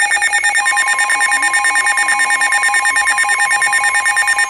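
Weather alert radios sounding their warning alarm: a loud, rapidly pulsing electronic beep, joined about half a second in by a steady tone just above 1 kHz, the NOAA Weather Radio 1050 Hz warning alarm tone that comes before a warning is read.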